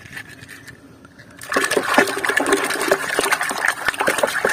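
Water splashing and sloshing as a hand swishes a muddy toy around in a tub of water to wash it, starting about a second and a half in.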